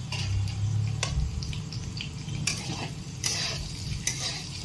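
Metal spatula stirring sliced potatoes and brinjal in a metal kadhai, with short scrapes and clinks against the pan, over a light sizzle of frying oil.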